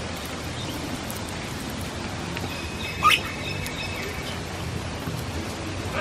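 A parrot gives one short, shrill screech about halfway through, with a few fainter chirps around it, over a steady background hiss.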